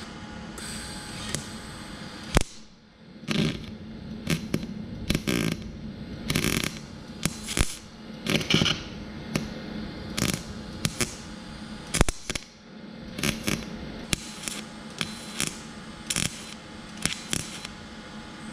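Welder laying short tack welds on a car's thin sheet-metal body panel: a string of brief bursts of noise, most under half a second, with a couple of sharp clicks. The metal is so thin that the welds keep blowing holes.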